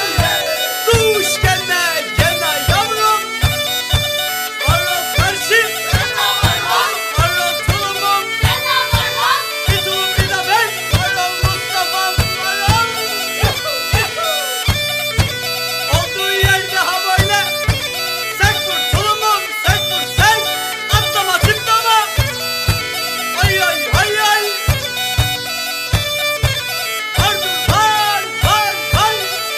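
Background music: an ornamented wind-instrument melody over held drone notes and a steady drum beat, about two beats a second.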